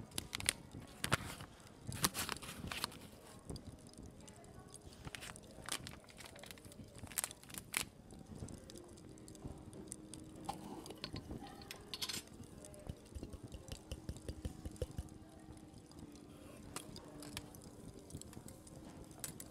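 A knife cutting through a soft, cocoa-dusted chocolate slab of cocoa powder and condensed milk, with irregular clicks and taps as the blade meets the wooden board beneath. A faint steady hum comes in about halfway.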